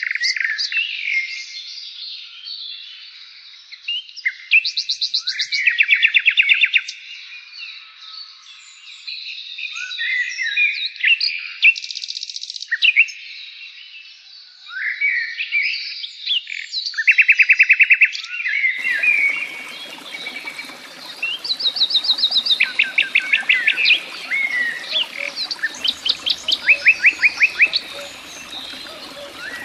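Songbirds singing with many short chirps and fast, rattling trills. A steady hiss joins under them about two-thirds of the way through.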